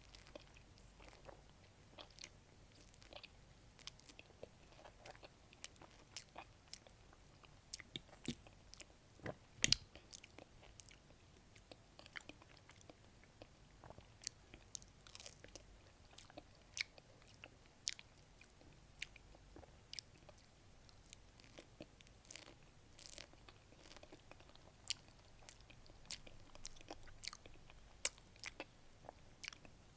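Close-up eating sounds of a peach being bitten and chewed: a long run of short, sharp mouth clicks. There is a louder bite about ten seconds in and another near the end.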